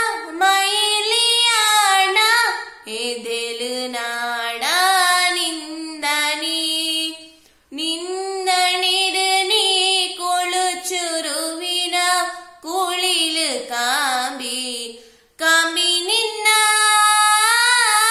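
A young woman singing a song solo and unaccompanied, in long held phrases with a few short breaks for breath.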